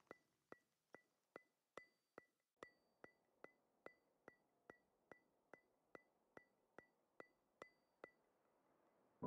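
Faint, regular ticking, about two and a half ticks a second, each tick with a short bright ring; it stops about a second before the end.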